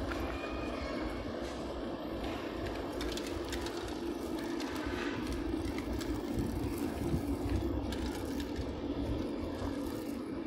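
City street ambience: a steady wash of motor traffic with a low hum and scattered faint clicks.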